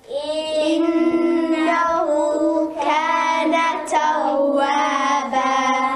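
A child's voice chanting in long, held melodic notes, in the style of Quranic recitation. It cuts off suddenly near the end.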